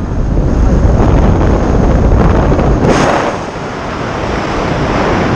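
Freefall wind buffeting the camera microphone during a tandem skydive: a loud, steady rush of noise, easing briefly about three and a half seconds in.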